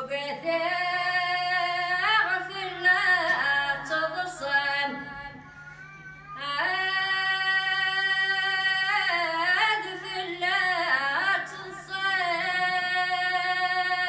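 A women's choir singing in unison with no instruments heard, in long phrases of held notes with short breaks about five and eleven seconds in.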